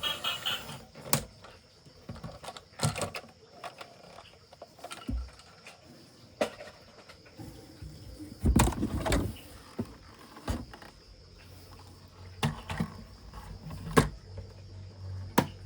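Handling noise from plastic toy vehicles and their packaging: scattered clicks and knocks, with a louder bump and rustle about eight and a half seconds in.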